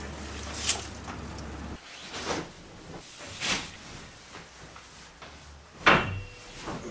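A wooden shutter knocks as it is pushed open. Then come two swishes of a bed sheet being shaken out, and a loud thump as someone drops onto a metal-framed bed about six seconds in.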